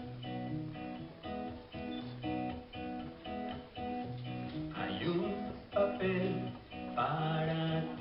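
Acoustic guitar played live, picking a repeating pattern of notes as the intro to a song, with a few sliding notes joining about five and seven seconds in.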